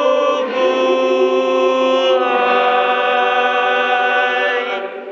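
Small choir singing long held notes in harmony. The chord changes about half a second in and again about two seconds in, and the last held chord is cut off near the end, closing the song.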